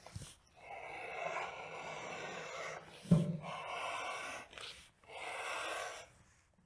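Wooden strap cutter's blade being pulled through thick Hermann Oak vegetable-tanned leather, a dry rasping cut in three long strokes, with a sharp knock about three seconds in.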